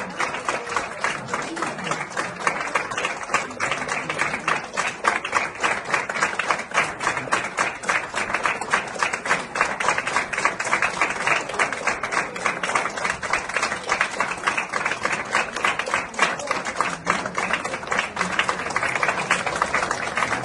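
A crowd applauding steadily, many hands clapping fast with no break.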